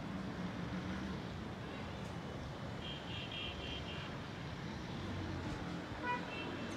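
Steady outdoor background noise like distant road traffic, with a short run of high chirps about three seconds in and one brief high call near the end.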